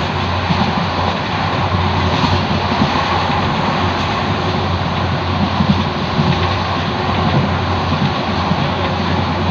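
Passenger train running at speed, heard from aboard the coach: a loud, steady rumble of the wheels on the rails with a continuous low hum.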